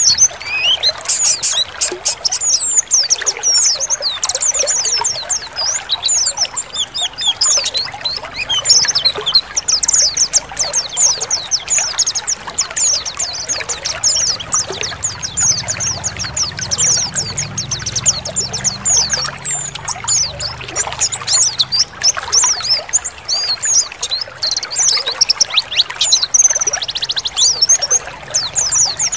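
A group of white-eyes (pleci) calling and twittering over one another in rapid, high, thin chirps, over a steady sound of trickling, pouring water.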